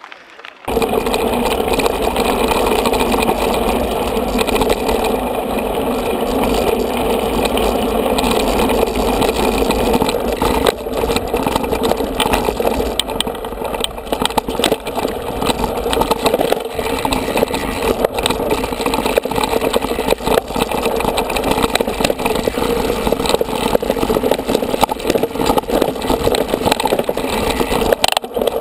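Merida O.Nine Team mountain bike riding over a rough forest trail: a steady rattling rush with scattered knocks from bumps, starting abruptly about a second in.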